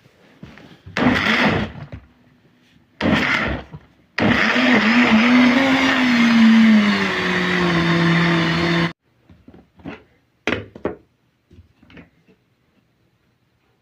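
Electric blender grinding a herbal mix of leaves, ginger and garlic: two short pulses, then one run of about five seconds with the motor note sinking under the load, cut off suddenly. A few light taps follow.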